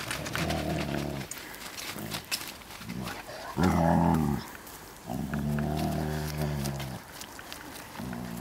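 Dogs play-growling as they wrestle: low, drawn-out growls in several bouts of one to two seconds each, the loudest about halfway through.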